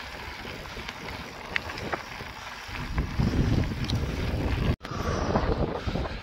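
Wind buffeting the microphone and rumbling trail noise from a mountain bike being ridden, with scattered small clicks and rattles. The rumble gets louder about three seconds in, and the sound drops out for an instant just before five seconds.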